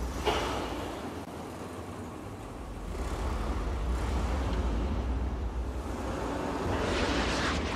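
A car's engine and tyres running through an underground car park, a low rumble with an echoing rushing noise that grows louder toward the end. A short sharp knock comes just after the start.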